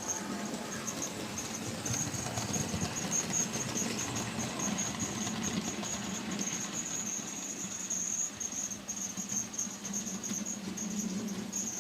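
Model railway train of goods wagons running steadily along the track: a high thin whine with a fast patter of small clicks from the wheels on the rails.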